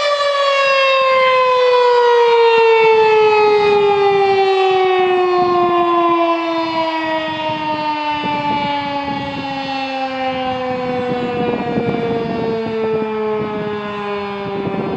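Second-generation Federal Signal 2001-SRN electromechanical outdoor warning siren winding down at the end of its test, one loud tone falling steadily in pitch.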